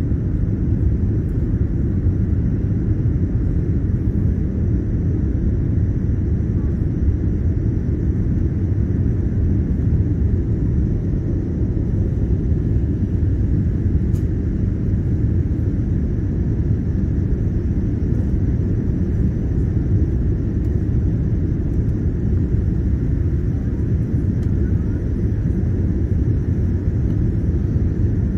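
Airliner cabin noise after takeoff: the engines and rushing air make a steady low rumble that does not change.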